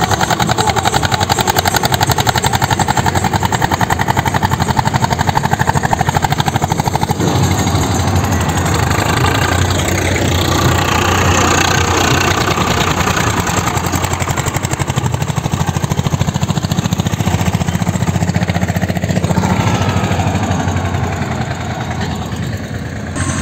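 Diesel tractor engine working under load: a Swaraj 855 FE's three-cylinder engine dragging earth with a rear levelling blade, with a steady, even firing beat.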